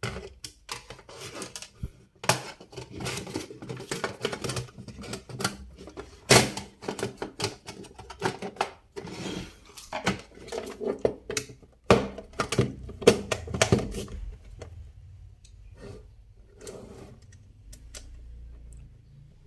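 Sheet-metal cover of a DVR recorder being handled and fitted back onto its case: a busy run of clicks, knocks and metallic rattles that thins out after about fourteen seconds.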